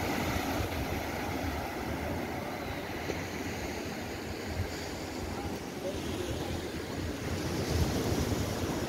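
Surf washing onto a sandy beach as a steady rush of waves, with wind rumbling on the microphone.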